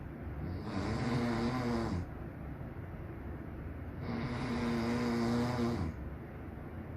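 A man snoring in his sleep: two long, pitched snores, each about one and a half to two seconds, roughly three and a half seconds apart.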